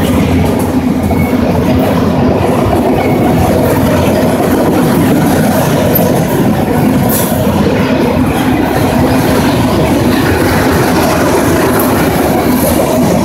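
Norfolk Southern autorack freight cars rolling past close by: a steady, loud rumble of steel wheels on the rails.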